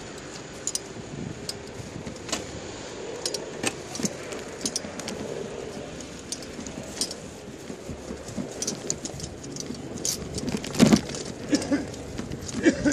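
Bicycle and dog trailer rolling over paving stones: a steady road rumble and wind noise with frequent light rattles and clicks from the trailer frame, and a louder knock about eleven seconds in.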